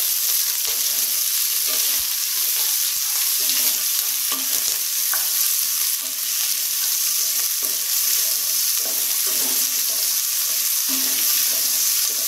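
Sliced onions sizzling steadily in coconut oil in an aluminium pressure cooker pot, stirred now and then with a wooden spatula. They are being sautéed until soft.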